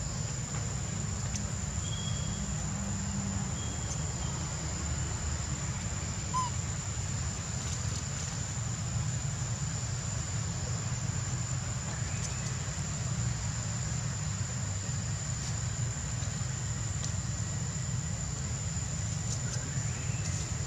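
Outdoor ambience: a steady high-pitched insect drone over a continuous low rumble, with a few faint bird chirps about two and four seconds in.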